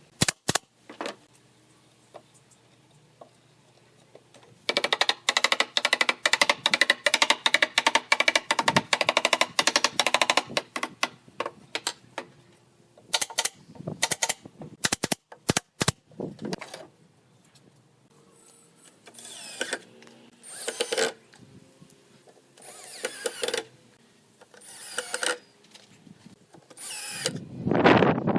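Woodworking on pallet wood. About five seconds in comes a burst of rapid knocking lasting several seconds, followed by scattered sharp clicks. Then come a series of rasping back-and-forth strokes, with a louder drawn-out stroke at the end.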